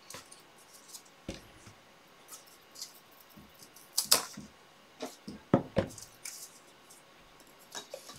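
Scissors and paper strips handled on a worktable: scattered light rustles and clicks, with a sharper click about four seconds in and two more around five and a half seconds in.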